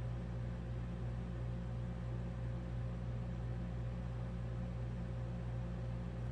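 Steady low machine hum of the room's background, with no distinct event.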